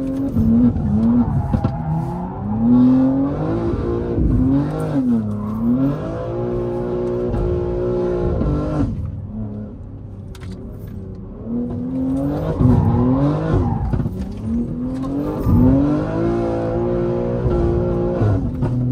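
BMW G80 M3's twin-turbo straight-six, heard from inside the cabin under hard driving. The revs climb and fall again and again, with a short lull about nine seconds in.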